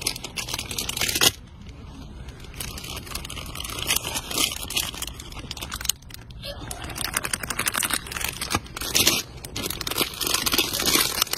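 Plastic bags of Trolli gummy candy crinkling as they are handled and pulled off the rack, in several bursts with quieter gaps between.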